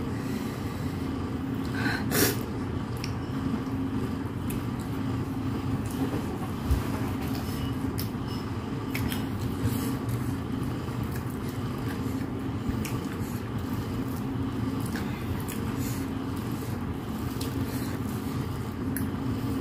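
Someone eating rice by hand: chewing and small clicks of fingers and food against the plate, over a steady low hum. The clearest clicks come about two seconds in and again near seven seconds.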